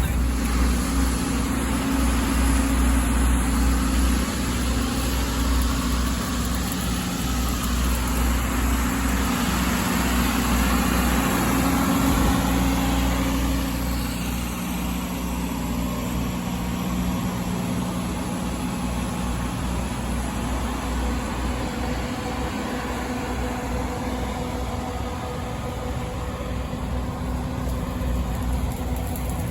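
Heavy engine on a crawler carrier welding rig running steadily at a low, even speed, easing slightly quieter about halfway through.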